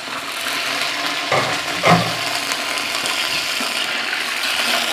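Chunks of jaggery dropping from a plate into a pot of hot water and oil, with two thuds about a second and a half and two seconds in, over a steady hissing sizzle from the pot.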